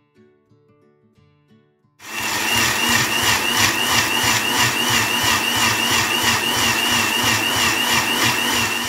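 Countertop blender switches on about two seconds in and runs steadily at speed, wet-grinding grated coconut, green chillies and water into a chutney paste, a loud whir with a warbling high whine. Soft acoustic guitar music plays faintly before it starts.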